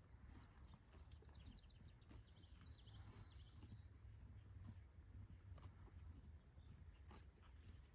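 Near silence with a faint low rumble of outdoor background noise, and a brief spell of faint, rapid, high bird twittering about two seconds in.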